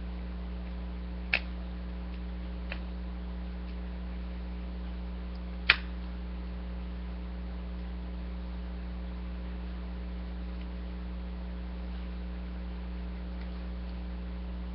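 Steady electrical mains hum with a few sharp clicks of plastic toy parts being snapped together: one about a second and a half in, a faint one shortly after, and the loudest about six seconds in.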